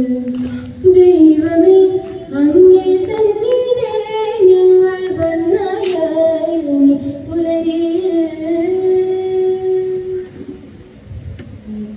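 A solo female voice singing a prayer song, with a wavering melody that moves up and down in pitch. The singing dies away shortly before the end.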